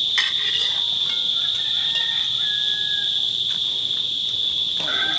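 A steady, high-pitched insect chorus: one unbroken drone.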